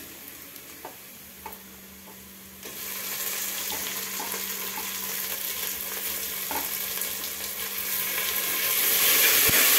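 Onions and chopped tomatoes frying in hot oil and ghee in an aluminium pressure-cooker pot, stirred with a metal spoon. The pot is quiet at first apart from a few light spoon taps. About three seconds in a loud sizzle starts as the tomatoes hit the oil, and it grows louder again near the end.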